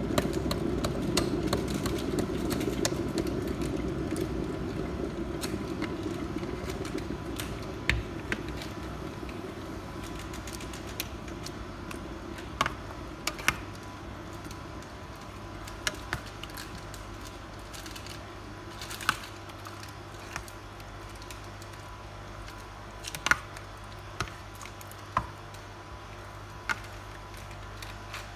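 A plastic spatula stirring and folding a thick, creamy fruit salad in a stainless steel bowl, with scattered sharp taps of the spatula against the bowl. Over the first several seconds, a wet squishing from the mayonnaise squeezed into the mix fades out.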